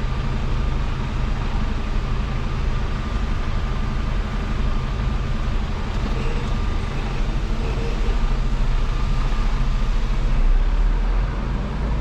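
Mercedes-Benz Actros MP4 truck's diesel engine running steadily, a low even hum heard from inside the cab.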